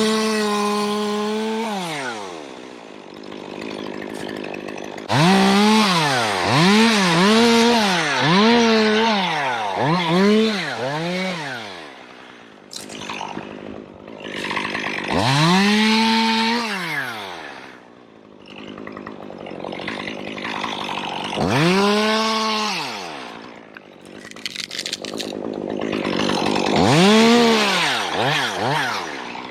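Two-stroke chainsaw revved to full throttle again and again, each rev lasting a second or two and falling back toward idle between. One run has about five quick throttle blips, as the saw cuts into wood.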